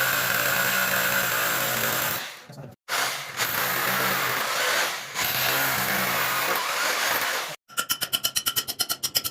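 A power tool running in three long stretches, each cut off abruptly. Near the end comes a rapid run of sharp pulses, about ten a second.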